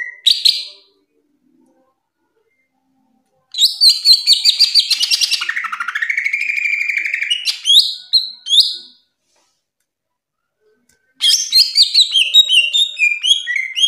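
A green leafbird (cucak ijo) singing loudly in bursts of rapid high trills and whistled notes, with a lower sliding phrase in the longest burst. The bursts are separated by pauses of about two seconds.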